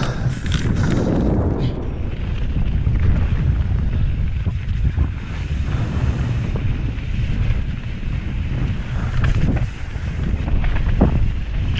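Wind buffeting the microphone in a steady low rumble as a mountain bike rides down a dirt and gravel trail, with scattered short knocks and rattles from the bike and tyres on the rough ground, a few of them near the end.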